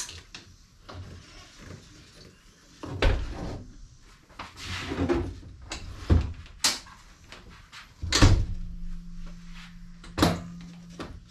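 Handling noise from a Garmin Force trolling motor as a replacement pull cable is fitted into it: scattered knocks and rattles of hard parts with rustling between, about five sharp knocks standing out. A faint steady hum comes in past the middle.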